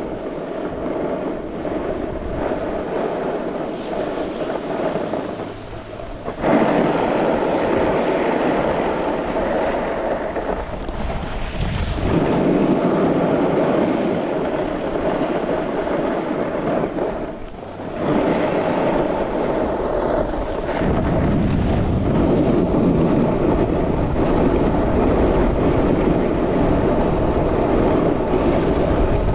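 Wind rushing over the microphone and the hiss of sliding fast over groomed snow on a downhill run: a steady, loud rushing noise that drops away briefly about six and again about seventeen seconds in.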